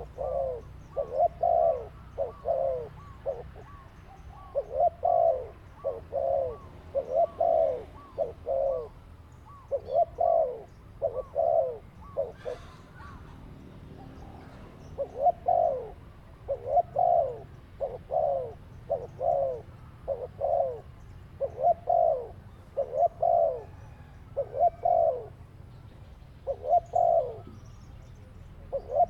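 A dove cooing over and over: short coo notes that fall in pitch, in runs of two to four, with a longer pause a little before the middle.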